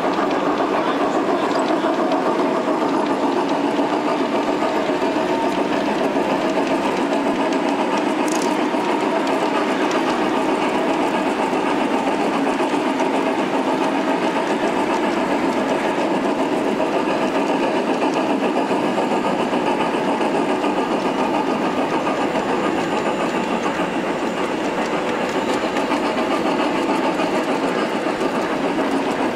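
G-scale model steam locomotive running steadily, with the chuffing sound of a steam engine and its wheels rolling on the track.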